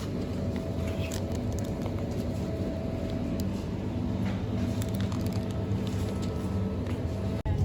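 Steady low rumble with a droning hum and a few faint clicks, like a vehicle or machinery running; it drops out suddenly for an instant near the end.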